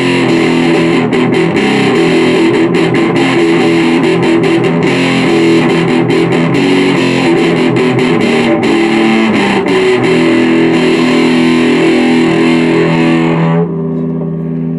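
Electric guitar played through an overdrive, distorted picked notes and chords. Near the end the bright fizzy top drops out suddenly and a softer, darker chord rings on.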